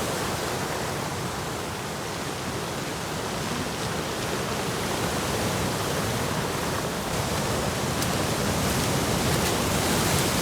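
Rough sea surf: waves breaking and washing in a continuous rushing noise that swells slightly toward the end.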